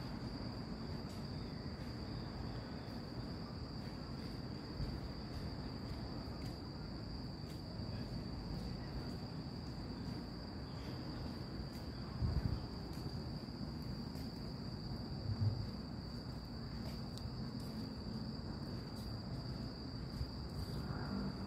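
Night insects chirring in one steady, high, unbroken tone over a low background rumble, with two brief low thumps midway through.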